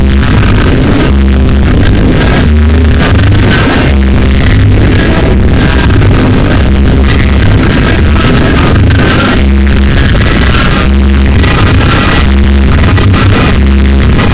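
Loud dance music played over a sonidero sound system, with a heavy bass beat repeating steadily.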